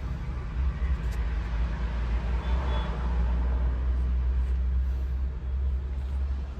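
Steady low rumble of an engine idling.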